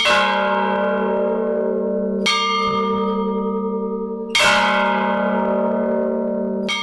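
A bell tolling slowly, struck about every two seconds, each stroke ringing on until the next.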